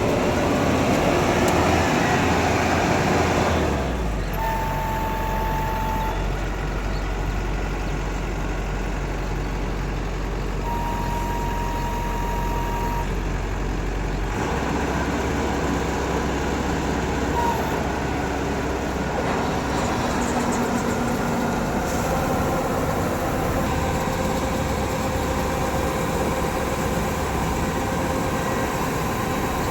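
Heavy diesel farm machinery, a combine harvester or tractor, running steadily with a deep engine rumble. A steady high tone sounds twice, about five and eleven seconds in.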